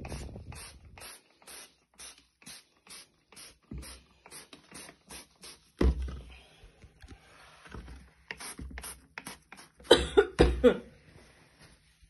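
Trigger spray bottle of Vanish Gold stain remover squeezed over and over, a quick spritz two or three times a second, onto pillow fabric. Louder bumps and rustling of the pillow come about six seconds in and again near ten seconds.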